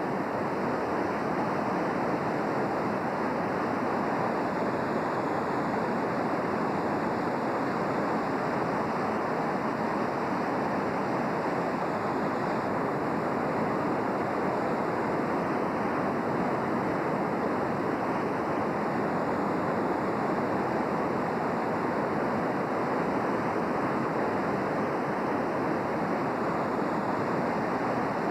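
The North Fork Wilson River in flood: a steady rush of high, fast-moving water.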